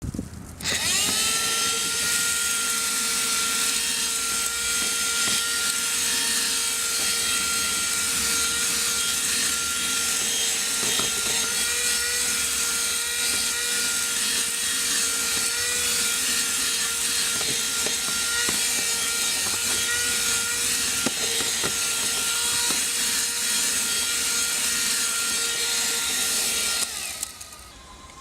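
Handheld car vacuum cleaner switched on, its motor spinning up to a steady high whine with a strong rush of air, running evenly for about 26 seconds, then switched off and winding down near the end.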